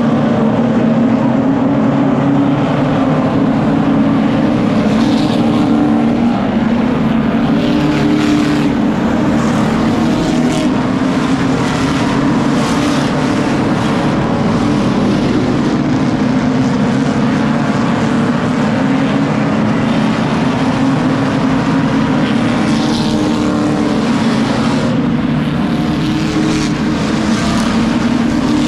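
A pack of oval-track stock cars racing past at speed, their engines blending into one continuous drone that rises and falls in pitch as the cars go by.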